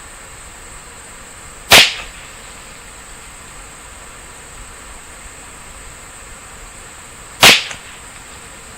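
Two shots from a Ruger 10/22 semi-automatic rifle firing CCI standard velocity .22 LR, about six seconds apart, each a sharp crack with a short tail.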